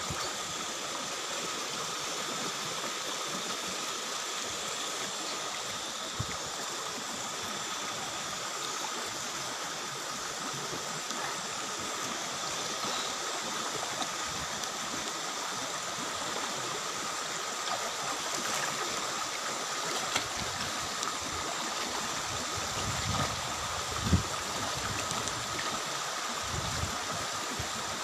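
Steady rushing of shallow water flowing over rocks in a stream, with a few soft low thumps near the end.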